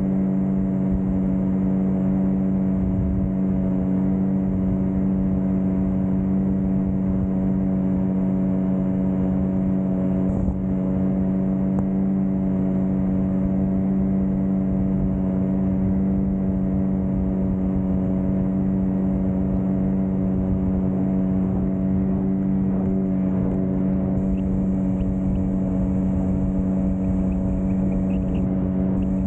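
Outboard motor on an inflatable boat running at a steady cruising speed: an even drone that holds one pitch throughout, with a low rumble of wind and water beneath it.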